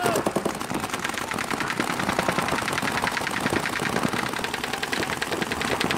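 Paintball markers firing in rapid, continuous strings of shots during a speedball point.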